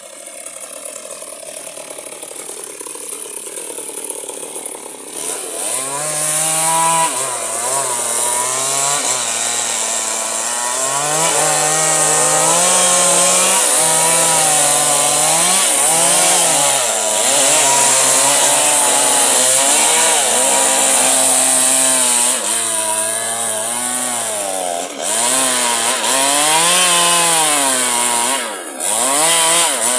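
Electric chainsaw cutting firewood. Its motor pitch wavers down and up as the chain bites into the wood and frees again, building over the first few seconds, with two brief drop-outs near the end.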